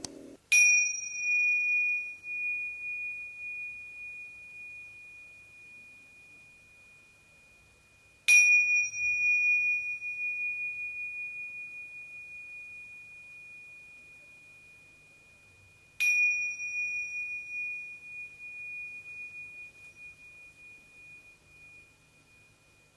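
Tingsha, a pair of small Tibetan cymbals on a cord, struck together three times about eight seconds apart. Each strike rings one high, pure tone that wavers as it fades slowly over several seconds.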